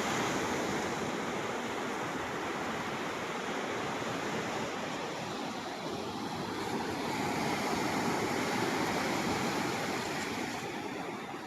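Sea surf washing onto a beach: a steady rush of waves that swells a little about two-thirds of the way through.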